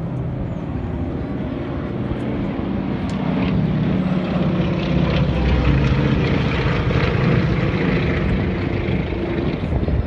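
Vintage twin-engine propeller airliner flying low past, its piston engines droning steadily. The drone grows louder toward the middle as the plane comes closest and eases a little near the end.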